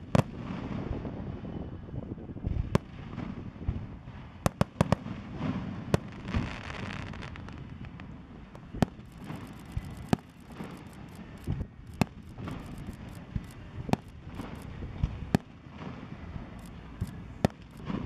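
A fireworks display: aerial shells bursting in sharp bangs at irregular intervals, over a low rumble. In the middle comes a run of rapid crackling pops.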